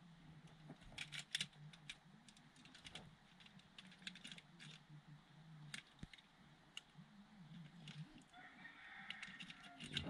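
Faint, scattered small clicks and taps of plastic parts being handled and fitted back together: a car's hazard light switch assembly being reinstalled, over a faint low hum.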